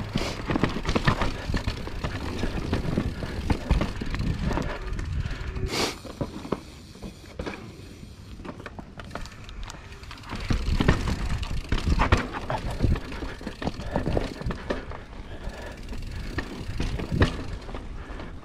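Mountain bike riding down a rough, rocky trail: tyres rumbling over rocks and roots with many irregular knocks and rattles, quieter for a few seconds in the middle.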